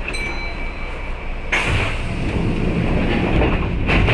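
Kintetsu 8600 series electric train running, a steady low rumble with a thin high tone over it. About a second and a half in, a louder rush of wheel-and-track noise sets in and swells again near the end.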